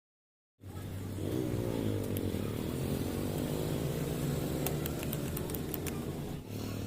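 Stihl MS 180 chainsaw's small two-stroke engine starting up just after the opening and running, its pitch rising and falling over the first couple of seconds before it settles into a steady run, with a few sharp clicks near the middle.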